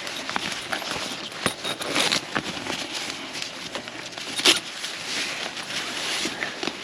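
Rustling and scattered clicks from a pop-up screen shelter's fabric and frame being handled, with one sharper click about four and a half seconds in.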